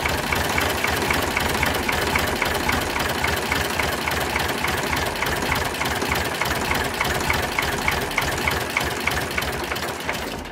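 Ford 3000 tractor engine idling steadily, with a sharp regular tick about three times a second above the engine note.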